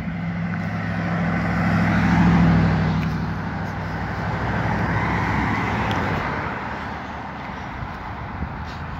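A motor vehicle passes close by on the road: engine hum and tyre noise swell to their loudest about two seconds in, then fade away over the following seconds.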